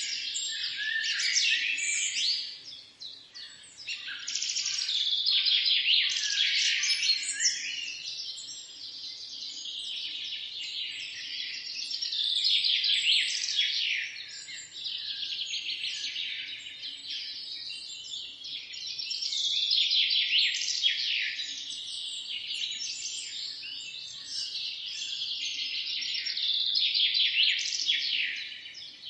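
Many birds chirping and singing at once in a dense morning chorus, their calls rising and falling in waves every few seconds.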